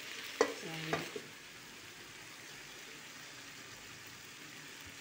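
Green beans and tofu sizzling steadily in a metal wok; a metal lid is set on with a sharp clank about half a second in, and the sizzling goes quieter once the lid is on.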